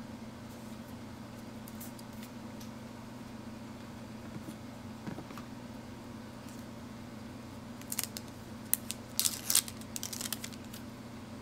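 Unboxing handling sounds: a few faint taps and rustles of packaging, then about eight seconds in a short run of sharp crinkling and crackling as the protective wrap is peeled off an Apple 30W USB-C power adapter. A faint steady low hum underneath.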